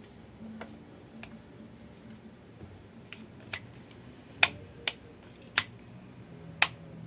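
The power switch of an Ozito grinder being clicked by hand: about five sharp clicks at uneven spacing in the second half, with a few fainter ticks before them.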